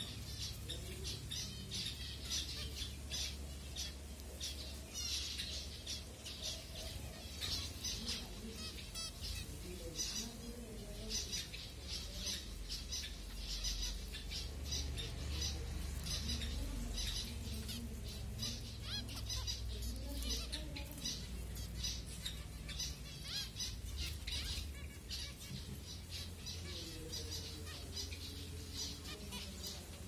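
A flock of zebra finches calling constantly while feeding: a dense stream of short, rapid calls, many each second, over a steady low hum.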